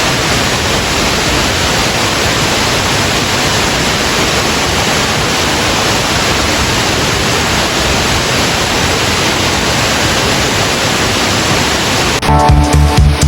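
Tvindefossen waterfall's water plunging down: a loud, steady rush. Background music with drums comes in about a second before the end.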